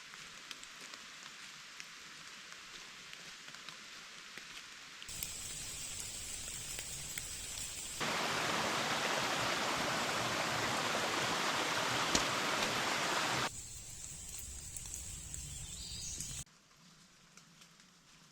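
Rain falling on the forest, with scattered drips. The steady rushing noise steps up and down abruptly several times and is loudest for about five seconds in the middle.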